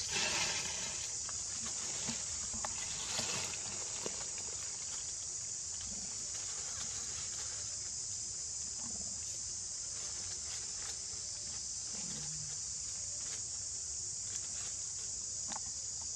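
Steady high-pitched insect drone with scattered light rustles and clicks of dry leaves.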